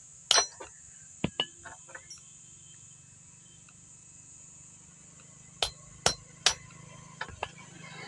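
Hammer striking a cold chisel to cut through a bicycle chain link on a steel block: sharp metallic blows, several in the first two seconds, then after a pause three more about half a second apart, with a few lighter taps near the end.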